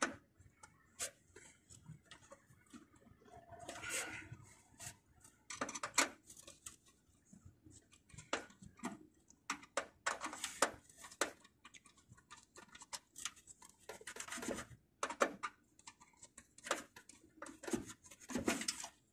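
Scattered small clicks, taps and scrapes, irregular and fairly faint, of a screwdriver and gloved hands working the wires and terminal screws inside an air-conditioning unit's control panel.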